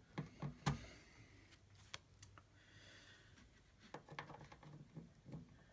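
Faint scattered clicks and light knocks, with a quicker run of small ticks in the last second and a half.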